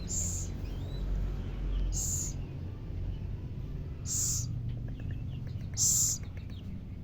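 Baby scops owl giving short, high, hissing rasps, four of them about two seconds apart, with faint small chirps in between: the food-begging call of an owlet.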